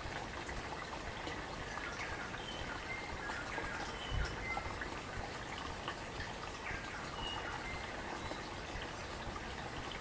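A stream babbling and trickling steadily, with a few short high bird chirps over it. A brief low thump about four seconds in.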